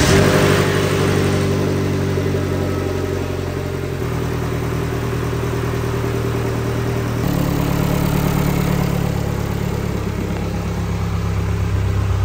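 Freshly rebuilt GM 1.5-litre LFV turbocharged four-cylinder engine of a Vanderhall Venice GTS, just started and running at idle on its first run after the rebuild. The idle speed shifts in steps, about four seconds in and again about seven seconds in.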